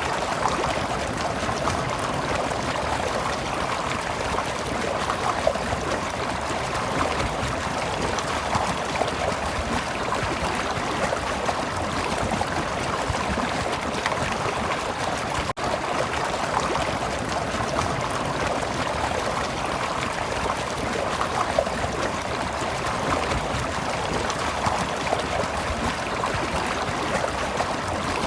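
Stream of water babbling and trickling steadily, with one momentary dropout about halfway through.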